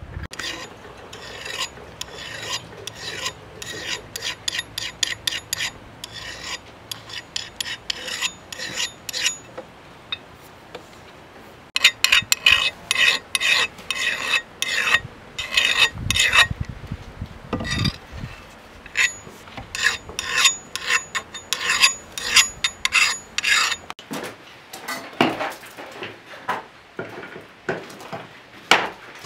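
A hatchet's steel blade being sharpened by hand with a file: repeated short scraping strokes, about two or three a second, louder from about twelve seconds in. In the last few seconds the strokes give way to sharper knocks.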